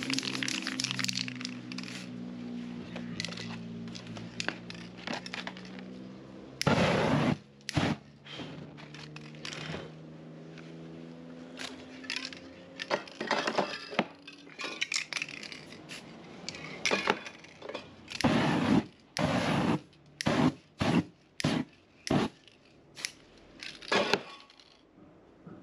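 Aerosol spray-paint can hissing in a dozen or so short, irregular bursts, while background music fades out over the first several seconds.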